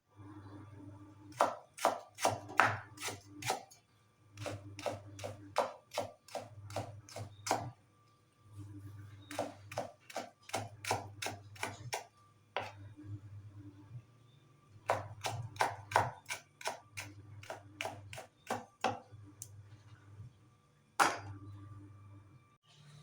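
Kitchen knife chopping vegetables on a cutting board: runs of quick strokes, about four a second, with short pauses between the runs.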